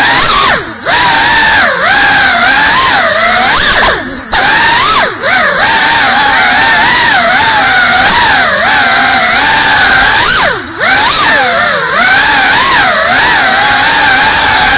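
Whine of a GEPRC Cinelog 35 ducted cinewhoop's brushless motors and propellers, picked up close by the drone's onboard camera, its pitch rising and falling constantly with throttle. The whine briefly drops away three times, about a second in, about four seconds in and near eleven seconds.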